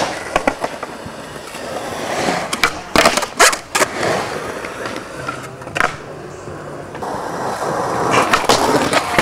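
Skateboard rolling, with sharp clacks of the board popping and wheels landing: a cluster of loud ones about three seconds in and another about six seconds in. The rolling grows louder near the end.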